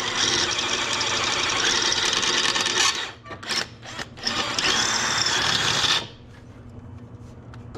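Power drill boring out a rivet that holds a stock brake line. It runs steadily for about three seconds, gives a few short bursts, runs again, and stops about six seconds in.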